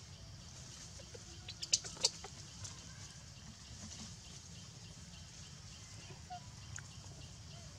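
Quiet forest ambience with a steady faint high hiss and low rumble, broken by a quick cluster of sharp clicks or snaps about two seconds in.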